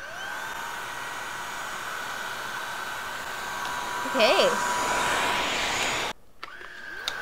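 Kalado cordless stick vacuum's brushless motor spinning up with a rising whine, then running with a steady high whine and rush of air, louder from about halfway through. It cuts off about six seconds in and starts up again straight after with the same rising whine.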